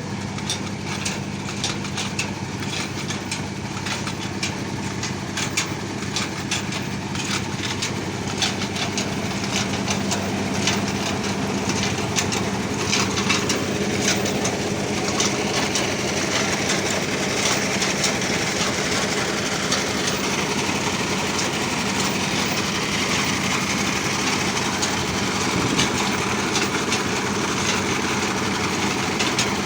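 Mayhew well-drilling rig running steadily, with a low steady hum throughout and many quick ticks through the first half.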